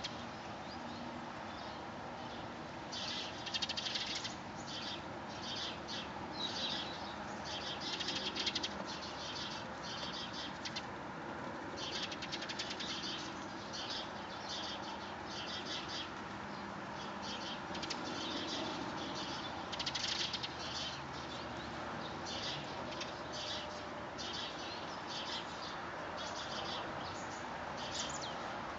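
Small birds chirping in short, irregular bursts of high calls, over a steady background hiss.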